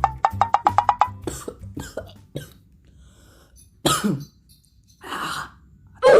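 A person coughing: three harsh coughs roughly a second apart in the second half, the last one the loudest.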